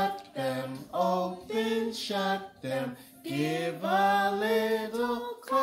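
A song with a singing voice: a melody of held notes stepping up and down in pitch.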